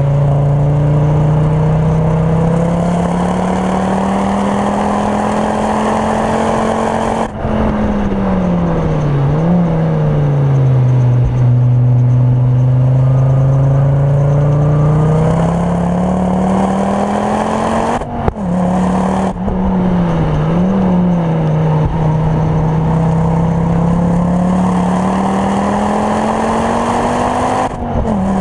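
Heard from inside the cabin: a Mk2 Ford Focus RS's turbocharged five-cylinder engine, with a Mountune 420 bhp conversion and full Milltek exhaust, runs hard at full throttle. It climbs in pitch through the revs, with a sharp cut in sound at each upshift. The pitch falls with brief rises during downshifts as the car brakes into a slow corner, holds low through the turn, then climbs again through the gears.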